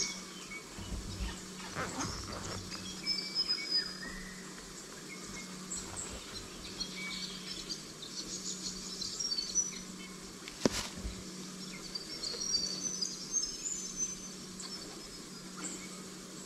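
Bush birds calling: short high chirps and twitters scattered throughout, over a faint steady low hum. One sharp click about ten and a half seconds in.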